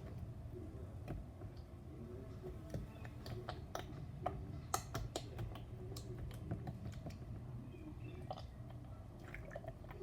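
Homemade glue slime being worked and mixed with added water: irregular sticky, wet clicks and squelches, a few sharper pops about four to five seconds in, over a steady low hum.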